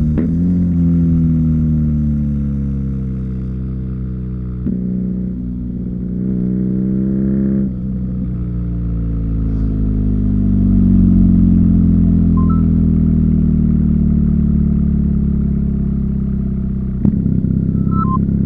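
BMW R NineT's boxer twin engine through an Akrapovic slip-on exhaust, heard from the rider's seat while riding: the engine note falls away as the throttle eases, then rises under acceleration with a brief break for a gear change about eight seconds in. It climbs slowly, drops off again, and near the end a sharp click is followed by a sudden louder, steadier pull.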